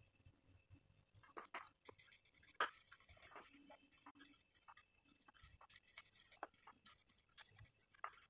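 Faint, scattered clicks and taps of a small kitchen knife as shallots are peeled and cut by hand over a stone mortar, with one sharper click about two and a half seconds in.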